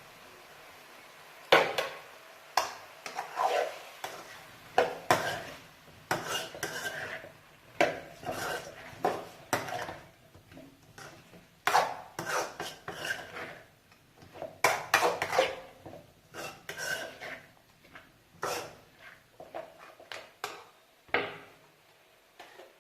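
A metal utensil knocking and scraping against a cooking pot in irregular clatters, as when stirring.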